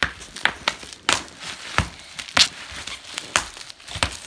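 Bubble wrap popping under children's hands pressed flat on the sheet: scattered sharp pops at uneven intervals, with the plastic crinkling between them.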